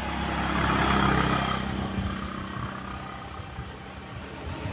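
A motor engine running steadily, with a low hum that swells about a second in and then fades, like a vehicle passing by.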